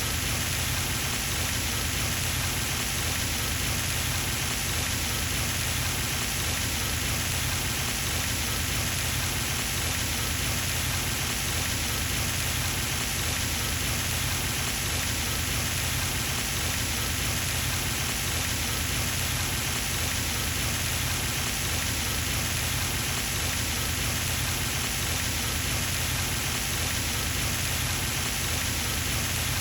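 Pond fountain running: its spray falling back onto the water as a steady, even splashing patter, like rain on a surface.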